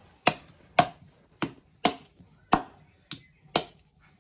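Large knife chopping chicken meat and bone on a wooden chopping block: sharp, evenly paced chops about two a second, seven strikes, one of them lighter.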